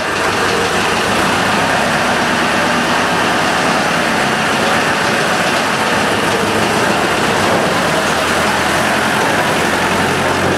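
Small tractor engine running steadily as the tractor drives up and passes close by towing a box trailer. The low engine hum grows stronger near the end as it draws alongside.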